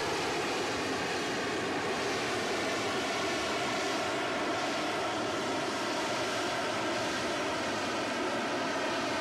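Jet aircraft engine noise, steady and unchanging at one level throughout.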